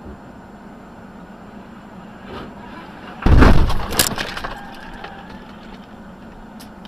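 A car crash: a loud sudden impact about three seconds in, with cracking and breaking sounds and clatter trailing off over the next second, over the steady hum of the camera car driving on the highway.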